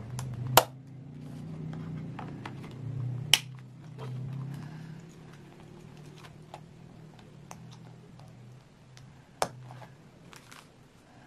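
A clear plastic A6 ring binder being handled: paper pages rustling, with small ticks and three sharp clicks from the binder's hardware, about half a second in, a few seconds in, and near the end.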